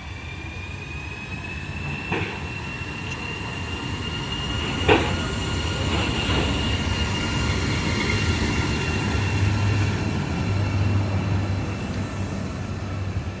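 Train rolling along with a high wheel squeal that rises in pitch over the first few seconds, then holds. Under it is a low rumble that swells and then eases off near the end. A few sharp knocks are heard, the loudest about five seconds in.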